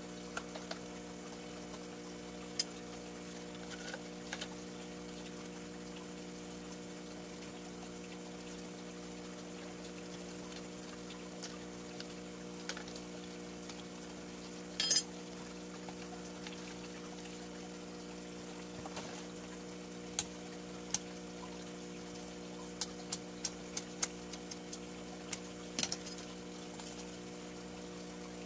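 A steady low hum runs throughout, with scattered light clicks and taps from plastic bottles and crushed snail shells being handled, a few of them in a quick run near the end.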